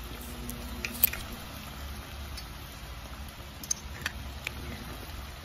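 Chicken simmering in achuete water in a steaming stock pot: a steady hiss with a few light pops and ticks, the sharpest about a second in.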